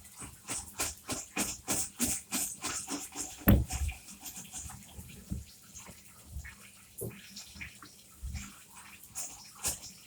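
Quick repeated scrubbing or splashing strokes, about three a second, as a Dyson DC07 vacuum part is washed by hand with running water. There is one louder knock about three and a half seconds in, and the strokes grow sparser after it.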